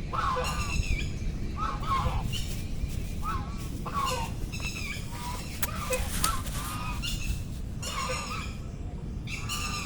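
Ducks calling over and over, short nasal honking calls from several birds coming irregularly about once a second, over a low steady rumble.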